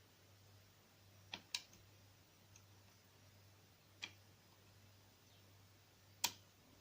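Faint, sharp clicks from a Mul-T-Lock dimple lock being picked with a dimple pick while it sits in a false set, the sound of its spool pins being worked. There are four clicks: two close together about a second and a half in, one around four seconds, and the loudest near the end.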